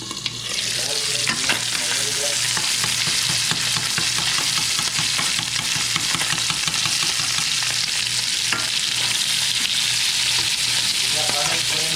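Coated brook trout frying in hot oil: a loud, steady sizzle that swells just after the start and holds, with a low hum underneath.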